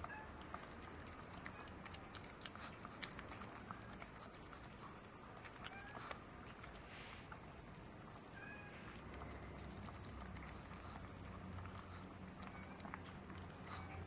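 A cat meowing, muffled behind a closed door: a few short faint cries spread through, from a cat shut out of the room and complaining. Close by, small clicking mouth sounds come from a chihuahua licking and nibbling at a bit of dog cake.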